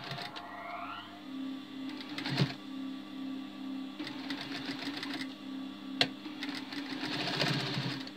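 Electric sewing machine running and stitching fabric: a steady motor hum with a regular pulse from the needle, and two sharp clicks about two and a half and six seconds in.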